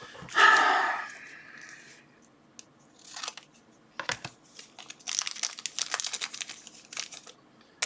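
Plastic packaging bags crinkling and rustling as they are handled and torn open, with a dense stretch of crinkling about five seconds in. A short, loud pitched squeak or hum about half a second in is the loudest sound.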